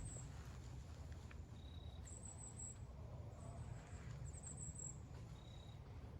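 Faint woodland ambience: short, very high chirping trills repeat every second or so, with two brief thin whistles, over a low steady rumble.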